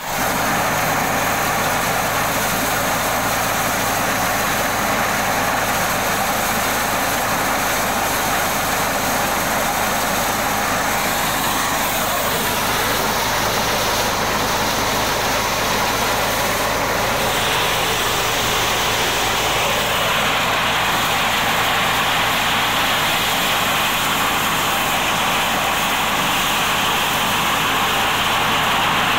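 Motorized corn sheller running at full speed while shelling corn: a steady mechanical drone with a dense, even rush of noise over it. The higher part of the rush grows a little louder about two-thirds of the way through.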